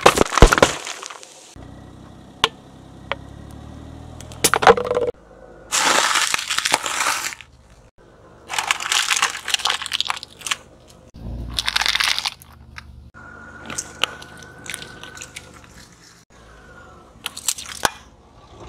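A car tyre rolls over and crushes one object after another. Aluminium soda cans burst with loud cracks and a hissing spray in the first second, followed by several more crunching, crackling bursts, including aluminium foil being crinkled flat, over a low engine hum.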